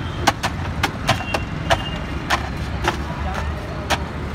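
Wooden paddles knocking and chopping on a steel cold pan of frozen ice cream, sharp uneven clacks about two or three a second over a steady low rumble.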